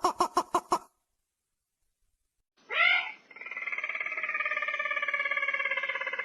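Recorded lure call of a ruddy-breasted crake (burung tikusan): a rapid string of short notes that stops about a second in, then after a pause a rising note leading into a long, steady, rapidly pulsing trill. It is a decoy call played to draw crakes in.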